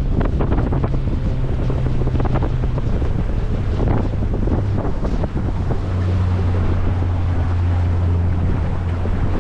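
Small fishing boat's motor running steadily under way, with wind buffeting the microphone and water rushing along the hull. About six seconds in, the engine note changes and its low hum grows stronger.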